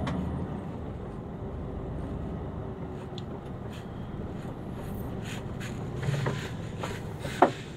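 Mercedes-Benz Actros truck's diesel engine running steadily, with a short sharp sound near the end.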